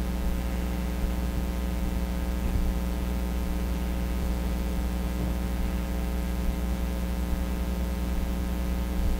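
Steady electrical hum with a faint hiss: room tone with no other events.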